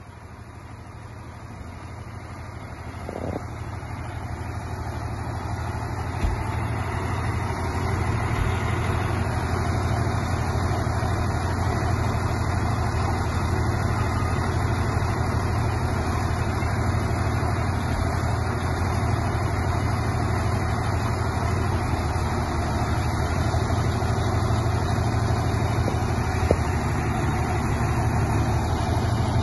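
Heavy six-cylinder Cummins diesel of an ACO 460 articulated tractor idling steadily. It grows louder over the first several seconds, then holds an even low running note.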